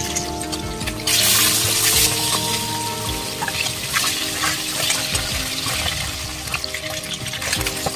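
Rohu fish pieces frying in mustard oil in a kadai: a steady sizzle that flares louder for about a second near the start, with small clicks of the spatula turning the pieces. Background music plays underneath.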